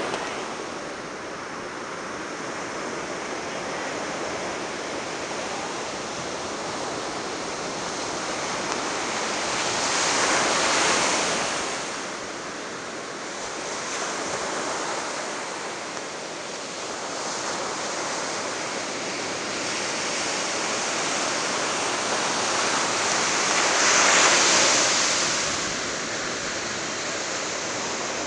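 Ocean surf breaking and washing up a sandy beach: a steady rush of foaming water that swells louder twice, about ten seconds in and again later, as bigger waves break and run up the sand.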